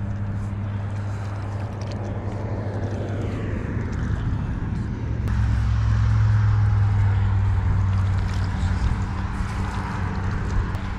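Steady low motor hum under wind and water noise, growing louder for a few seconds in the middle.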